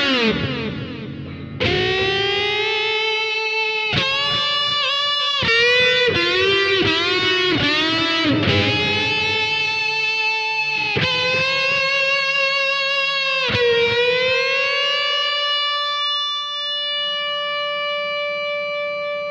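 Background music: a distorted electric guitar lead playing slow, sustained notes with pitch bends, settling into one long held note that rings on near the end.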